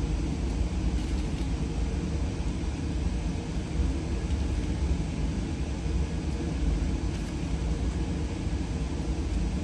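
Steady low rumble and hiss of an indoor shooting range's ventilation system, with a faint hum running through it.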